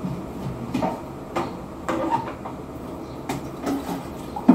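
Knocks and clatters of a plastic water bucket's lid and a steel pot being handled: about half a dozen short knocks, the loudest near the end, over a steady low hum.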